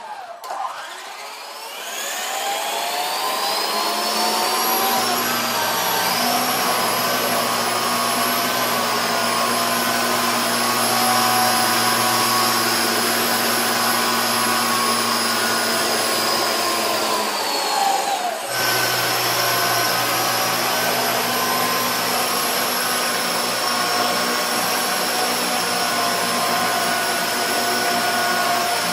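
Small coaxial RC helicopter's electric motors and rotors spinning up with a rising whine over the first few seconds, then holding a steady whine in flight. About 17 seconds in the pitch drops briefly before the steady whine picks up again.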